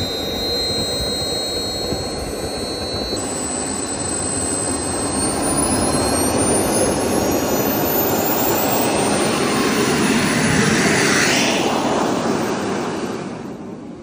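Radio-controlled F/A-18 model jet's turbine engine running with a high whine that rises in pitch as it throttles up. It grows louder, then fades near the end as the jet rolls away down the runway on its takeoff run.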